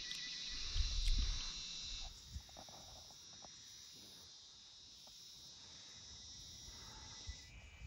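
Steady, high-pitched drone of an insect chorus, louder for the first two seconds and then fainter, with some low rumble in the first second or two.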